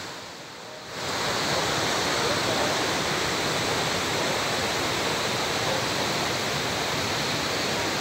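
Steady rushing of a waterfall, an even roar of falling water that dips briefly in the first second and then holds level.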